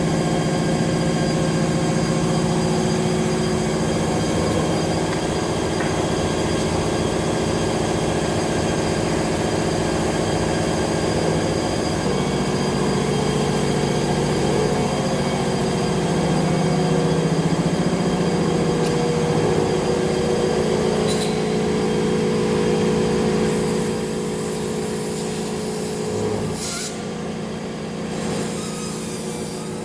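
CNC vertical machining centre running a cut: a steady machine hum made of several held tones, whose pitch pattern shifts partway through. Loud hissing comes in bursts near the end.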